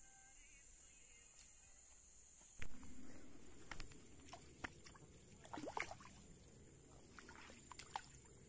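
Water splashing as a catfish is scooped into a mesh landing net: a sudden splash a little under three seconds in, then smaller splashes and drips.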